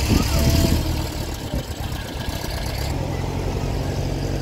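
An engine idling steadily nearby, with a high hiss that cuts off suddenly about three seconds in.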